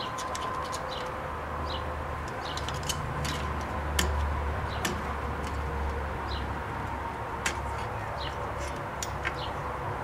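Irregular light metal clicks of flathead screwdrivers working a rear drum brake's star-wheel adjuster, backing it off to pull the shoes in, with the strongest click about four seconds in. Short bird chirps sound now and then over a low steady background hum.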